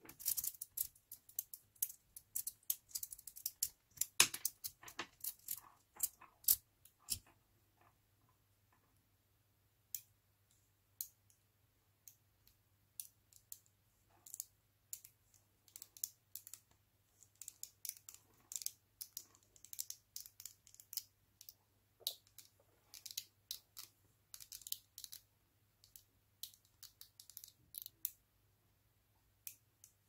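Small magnetic balls clicking sharply as they snap together and are pressed into rows by hand, in irregular runs of quick ticks, with a pause of about two seconds roughly a quarter of the way in.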